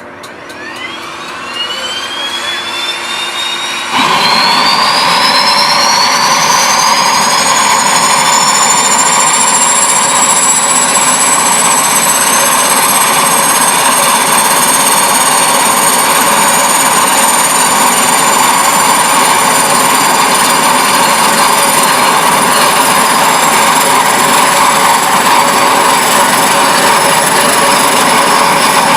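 Jet-style plane engine spooling up: a whine rises in pitch over the first few seconds, the sound grows suddenly louder about four seconds in, and it settles into a steady high whine over a loud rushing roar.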